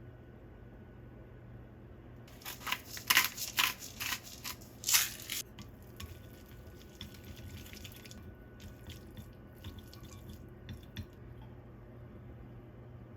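Kitchen food-prep handling noises: a quick run of sharp clacks and crackles for about three seconds, then fainter scattered clicks, over a steady low appliance hum.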